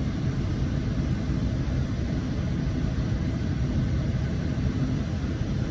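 Steady low rumble and hum of a Coaster diesel commuter train, heard from inside a passenger car while the train stands at the platform.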